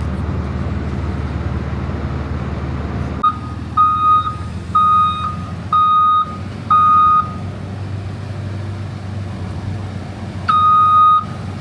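JCB telehandler's diesel engine running, and from about three seconds in its reversing alarm beeping at one steady pitch, about once a second, with a pause before two more beeps near the end.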